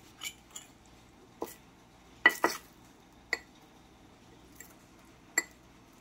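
A metal fork clinking against dishes while a microwaved fried egg is slid out of its dish: about seven separate short, sharp clinks, the loudest pair close together about two seconds in.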